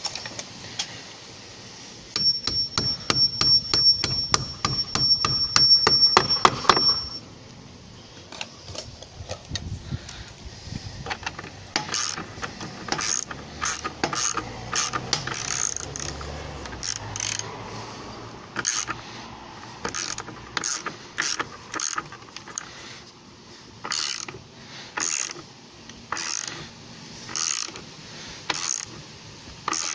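A power tool runs for about five seconds with rapid knocking and a steady high whine. Then, from about halfway through, come short repeated runs of ratchet clicks from a socket wrench tightening the bolts that fix the timber wall plate to the brick wall.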